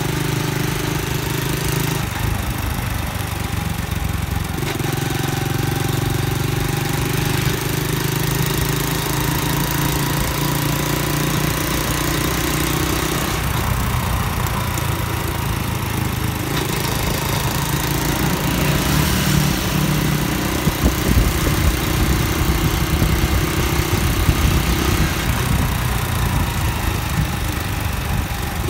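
Honda Dream underbone motorcycle's single-cylinder four-stroke engine running under way, heard from the rider's seat over steady wind and road noise. The engine note steps in pitch a few times as the throttle or gear changes, and a rougher, gusty low rumble joins in the second half.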